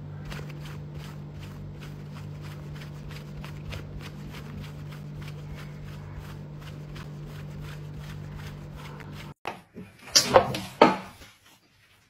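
Hand rubbing a cat's fur in soft, even strokes about three or four a second, over a steady low hum. After a sudden cut, a few loud wavering cries come about ten seconds in.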